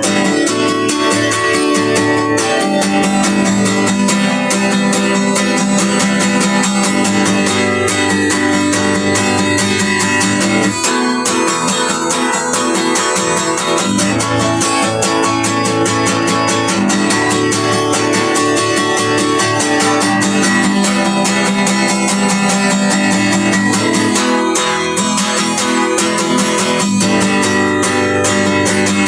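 Guitar music playing steadily without a break.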